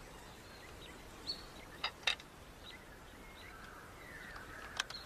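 Faint outdoor bush ambience, with a few short, high chirps and clicks scattered through it.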